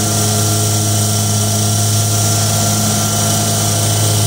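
Zero-turn mower engine running steadily at constant throttle, an even hum with a high hiss over it.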